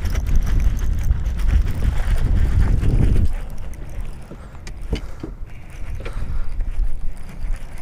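Wind buffeting the microphone as a heavy low rumble for the first three seconds, then easing off, with a few sharp clicks from the baitcasting reel being handled about five seconds in.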